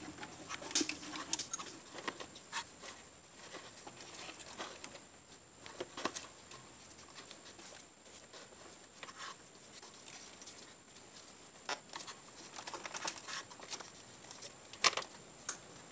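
Scattered small clicks, taps and rubbing as rubber coolant hoses are handled and pushed onto fittings in a car's engine bay, the loudest click near the end.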